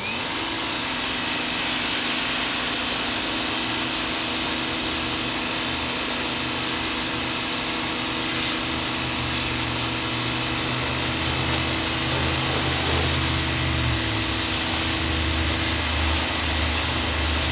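A Greenworks 2000 PSI electric pressure washer starts up abruptly and runs steadily. Its pump hums beneath the hiss of the water jet from a 40-degree tip spraying wood.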